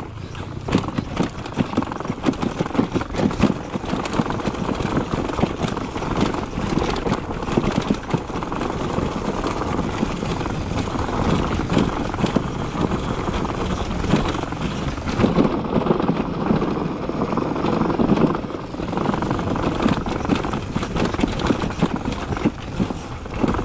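Beta 300 RR two-stroke enduro motorcycle ridden on rough singletrack: the engine's revs rise and fall with the throttle, over constant knocks and clatter from the bike over rocks and roots.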